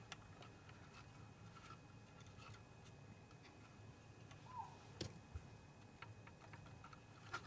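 Near silence: room tone with a few faint clicks, the sharpest about five seconds in.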